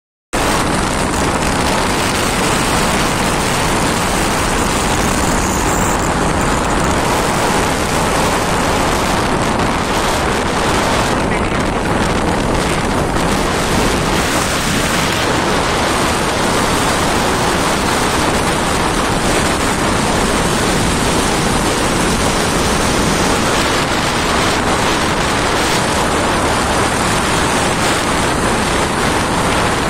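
Steady wind rush on the microphone of a moving motorcycle: an even, dense hiss with no clear engine note.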